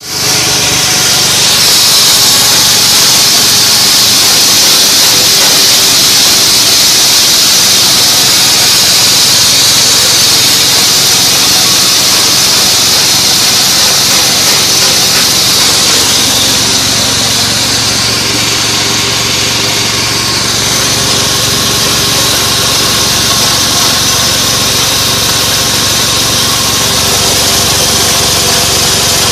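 Multifunction grass chopper driven by a 6.5 hp engine, running steadily at speed, with a strong high hiss over the engine note. It eases off slightly about two-thirds of the way through, then holds steady again.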